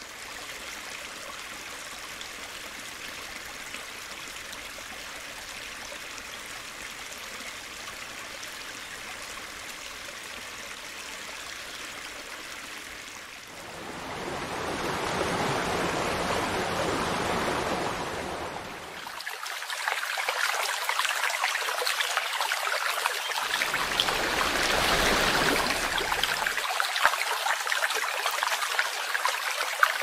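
Waterfall water pouring and splashing down a rock face: a steady rushing hiss that grows louder about halfway through.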